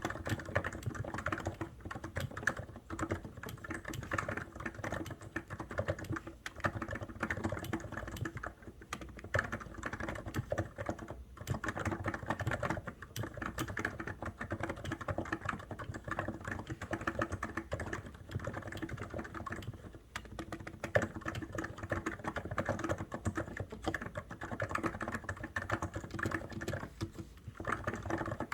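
COX Endeavour keyboard being typed on at a steady fast pace, keystrokes clattering in a dense run with a few brief pauses.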